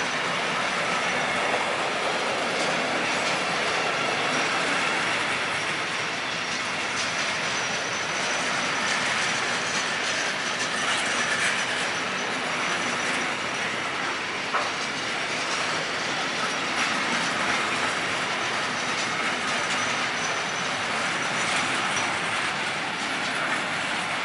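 Intermodal freight wagons loaded with lorry trailers rolling past: a steady, loud rumble of wheels on rail with clickety-clack over the rail joints and a thin high whine above it. The noise eases off right at the end as the last wagon goes by.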